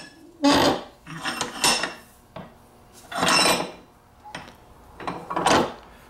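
Short scraping, rubbing sounds of metal against metal, about four in all and each half a second long, as a small steel lock-pick tip is set and clamped between the jaws of a bench vise.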